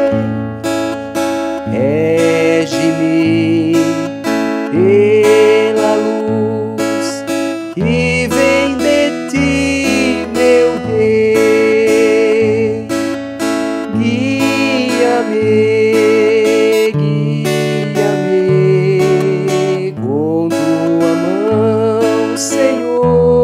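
Steel-string acoustic guitar strummed in a three-beat pattern through A, E and D major chords. A slow melody of long held notes with vibrato runs over the strumming.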